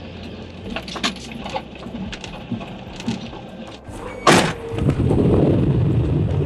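Footsteps crunching on loose gravel, irregular sharp crunches, then a loud thump about four seconds in followed by wind buffeting the microphone in a heavy rumbling gust.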